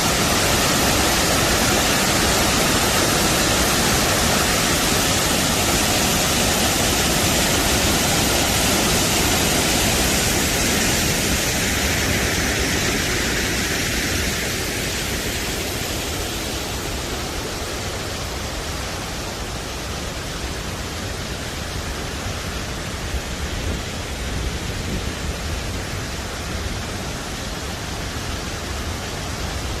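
Waterfall's rushing water, a steady dense wash of noise that softens a little about halfway through.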